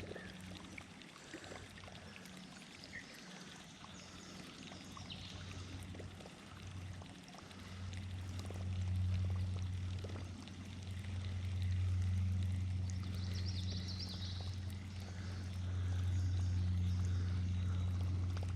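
Running river water around a kayak, with a steady low hum that swells in about halfway through and is the loudest sound.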